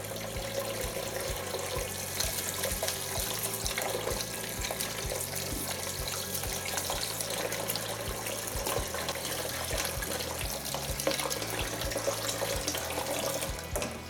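Kitchen tap running into a washing-up bowl in the sink, a steady rush of water that is shut off right at the end.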